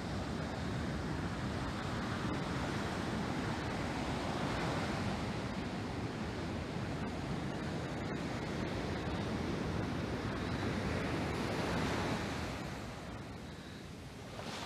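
Ocean surf: waves breaking and foam washing up over a sand beach in a steady rush that swells and ebbs, easing somewhat near the end.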